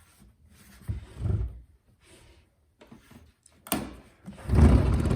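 Plastic water reservoir being fitted into a jobsite coffee maker: a soft knock about a second in, a sharp click near the end, then a louder low rumbling scrape as it is pushed home.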